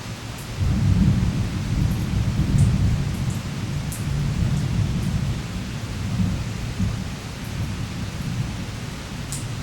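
Steady rain with a long, low rumble of thunder that swells suddenly about half a second in and slowly eases off. Scattered drops tick over the rain.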